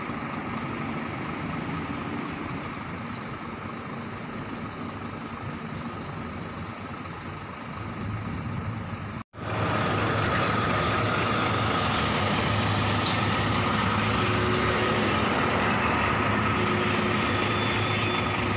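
Heavy diesel dump trucks hauling coal, running steadily: a distant truck engine at first, then, after a sudden cut about halfway through, a louder, closer truck driving past with a steady high tone in its running noise.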